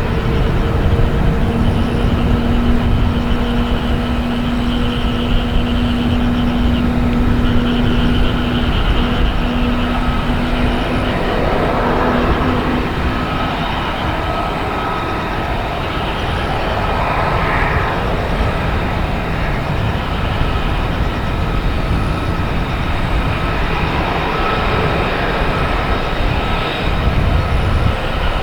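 Steady vehicle noise: a continuous low rumble with a humming tone that fades out about halfway through.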